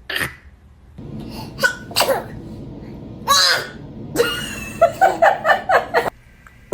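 A baby sneezing: a sharp sneeze right at the start and a bigger one a little past halfway, with short breathy sniffs between, then a quick run of short little vocal sounds.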